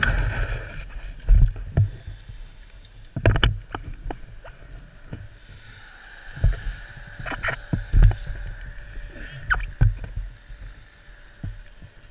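Irregular thumps and knocks of a fallen KTM 250 EXC dirt bike being handled and heaved back upright after a crash, over a low hiss.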